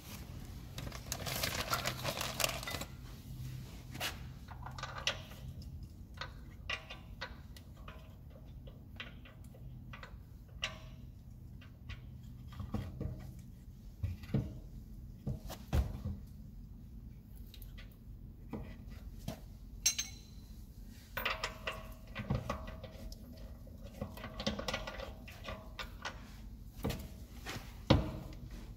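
Light metallic clinks and scrapes as steel wheel bolts are handled and threaded into a car's wheel hub, with scattered sharper knocks, the loudest near the end, over a low steady hum.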